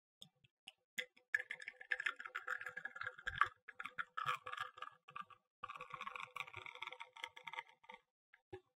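Espresso streaming from a bottomless portafilter on a manual lever machine into a glass, a faint crackling and spitting as the lever is pressed. It starts about a second in, breaks off briefly midway, and thins out near the end.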